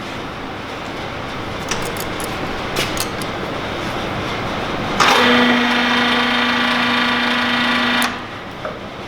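LeBlond Makino engine lathe running under power. About five seconds in it gets louder with a steady whining tone, then drops back to its lower running sound about three seconds later.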